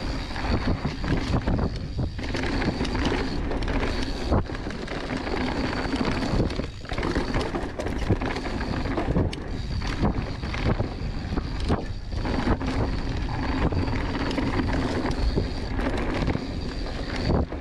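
Mountain bike descending a dirt singletrack at speed: wind rushing over the microphone, tyres rolling on dirt, and the bike rattling and knocking over bumps and roots, with a high steady tone that comes and goes.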